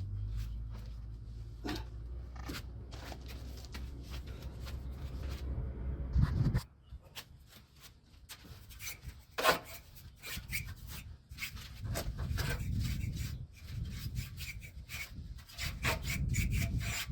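A brush scrubbing dust out of an air conditioner's coil fins, a long run of short scraping strokes. A low hum underneath stops suddenly about six seconds in.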